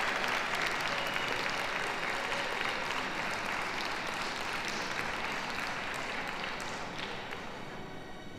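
Ringside audience applauding steadily, the clapping thinning and fading near the end as faint music comes in.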